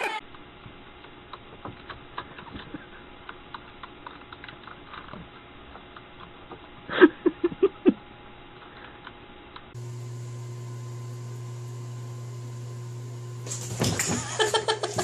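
Computer keyboard keys clicking in scattered taps, with a quick run of about five much louder sounds about seven seconds in. After about ten seconds a steady low hum takes over, with a burst of louder noise near the end.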